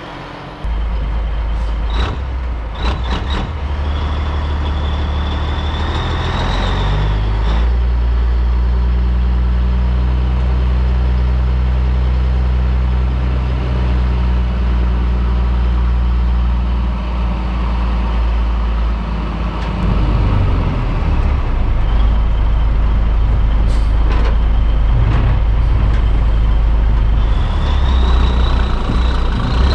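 Caterpillar 3406B diesel in a 1984 Peterbilt 362 cabover running, with a few short sharp clicks and hisses of air from the brake system. The engine's pitch shifts around six seconds in, and it gets louder about twenty seconds in as the truck gets ready to pull out under load.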